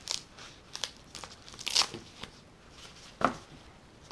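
Protective wrapping sheet crinkling and rustling as hands peel it off a foam RC-plane elevator, in a string of short, sharp crackles, loudest about two seconds in and again a little after three seconds.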